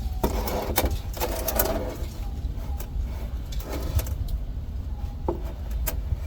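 Scattered light metallic clicks and knocks over a steady low rumble, from work on a truck's rear differential as the cover comes off and the gear oil drains.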